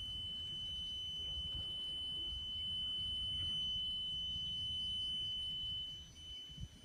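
Nissan 180SX's key-in-ignition warning buzzer sounding as one steady, high-pitched electronic tone, over a low rumble.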